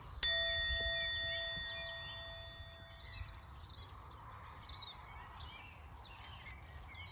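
A single bell-like chime rings out just after the start and fades away over about three seconds, with birds chirping behind it.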